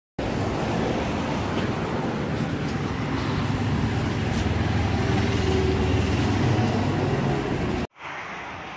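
A vehicle engine running steadily, loud and low, with a broad roar over it; the sound cuts off abruptly about eight seconds in and gives way to a quieter traffic hum.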